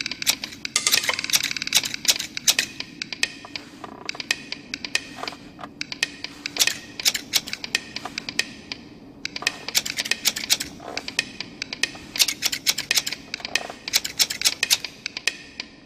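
Metal scissors snipping rapidly, in runs of quick ringing clicks with short pauses between, over a low steady drone.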